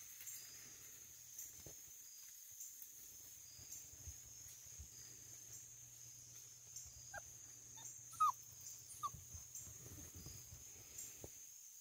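Basset hound puppy whimpering: three short, thin squeaks about a second apart, the middle one the loudest.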